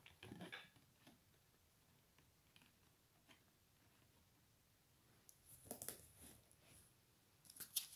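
Near silence, with a few faint taps and rustles of oracle cards being handled and set upright on a stand: once just after the start and again about five to six seconds in.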